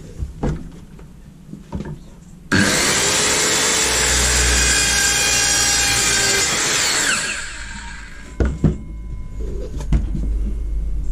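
Evolution 165mm TCT multi-material circular saw starting suddenly and cutting through PVC pipe for about five seconds, then spinning down quickly with a falling whine as its electric blade brake stops the blade. A few light knocks come before it and two sharp knocks after.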